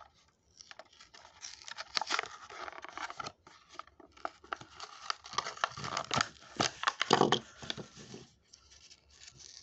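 Hot Wheels blister pack being torn open by hand: the clear plastic bubble crinkles and crackles and the cardboard backing tears as the die-cast truck is worked out. The crackling comes and goes in irregular spells and dies away near the end.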